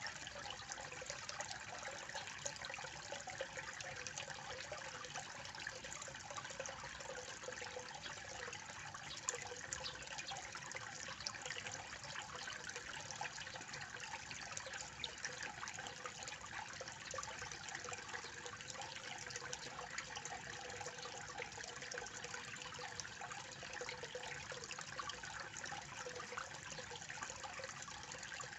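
Fountain water pouring into a koi pond, splashing and trickling steadily with a dense crackle of small splashes.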